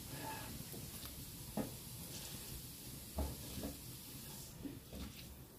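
Mustard seeds in hot oil in a kadai, with a faint sizzle and a few scattered sharp pops as the seeds begin to crackle.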